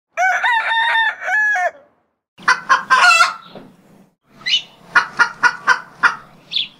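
Chickens: a rooster crows at the start and again about two and a half seconds in, then short clucking calls repeat through the rest.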